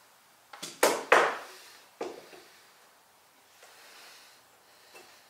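Sharpening stones being handled and set down on a wooden workbench: a quick run of clacks and knocks in the first two seconds, the loudest a little past one second in, then only faint handling noise.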